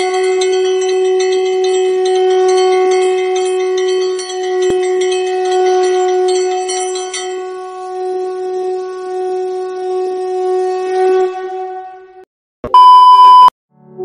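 A conch shell (shankh) blown in one long steady note lasting about eleven seconds. After a short gap, near the end, comes a brief, very loud beep.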